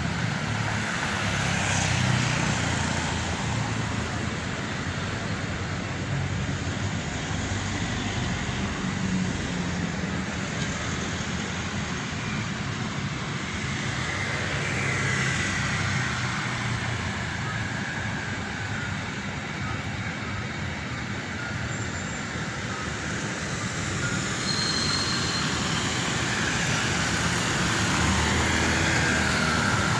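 Steady street traffic: cars and vans driving past on a city road, with the noise swelling as vehicles pass and growing louder near the end.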